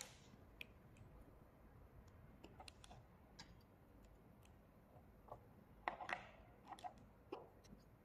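Faint, scattered clicks and taps of alligator-clip test leads being handled and clipped onto the pins of a metal push button switch, with a brief cluster of louder clicks about six to seven seconds in.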